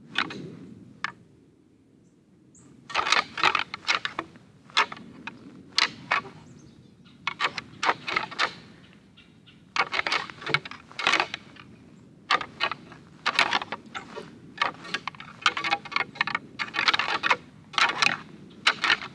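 Rattling antlers clashed and ground together as a deer call, in about eight bouts of rapid clicking and clacking, each a second or so long with short pauses between. This imitates two whitetail bucks fighting, to draw a buck in during the rut.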